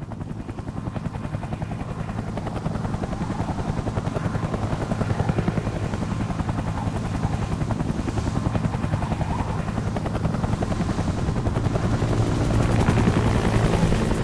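Mi-8 helicopters running with rotors turning on the ground: a fast, steady rotor beat over a low turbine hum, growing louder toward the end.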